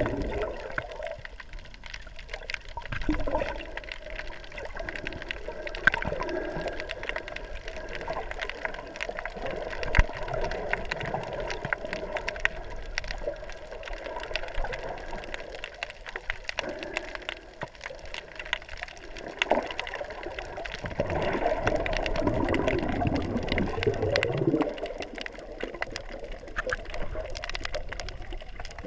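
Underwater ambience picked up by a submerged camera: muffled water movement with a scattered crackle of small clicks, swelling louder briefly about three seconds in and again for a few seconds near the twenty-second mark.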